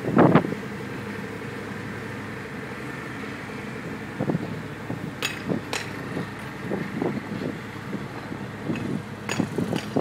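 Volvo wheel loader's diesel engine running steadily as the machine creeps forward pushing a screed beam through the sand bed. A brief loud buffet of noise comes at the start, and a few sharp clicks or knocks come around five to six seconds in and again near the end.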